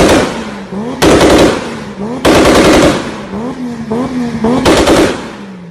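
Toyota Supra's tuned engine being revved hard again and again, each rev breaking into a loud burst of rapid exhaust bangs like machine-gun fire. There are four such bursts, with the engine note rising between them.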